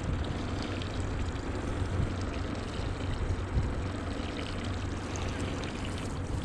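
Steady pouring, trickling water with a low hum underneath.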